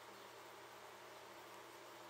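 Near silence: a faint steady hiss with a low hum.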